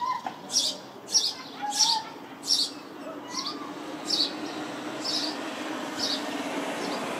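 House sparrows chirping: a string of short, high chirps about one every 0.7 seconds, loud at first and growing fainter after about three seconds.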